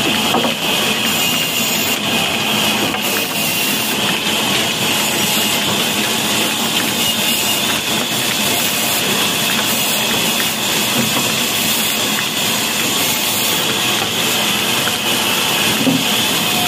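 Wood-cutting band saw running freely, belt-driven by an old diesel engine: a steady mechanical run with a constant high whine over it, no pauses or changes.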